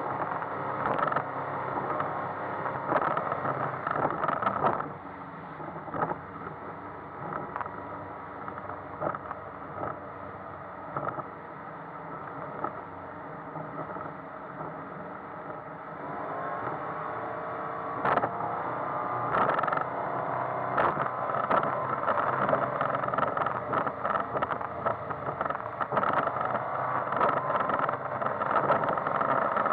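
The original 140 hp 3.0-litre four-cylinder MerCruiser sterndrive engine of a 1978 Draco 20 DC running under way, heard from inside the cabin. Its sound drops about five seconds in, then its pitch climbs as the revs rise around sixteen seconds. Repeated knocks and rattles from the hull in the chop run through it.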